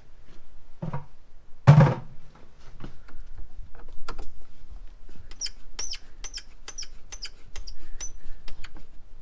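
Hand work with a screwdriver inside a household electrical breaker panel: scattered clicks and a louder knock about two seconds in, then a run of about seven short high-pitched squeaks, two or three a second.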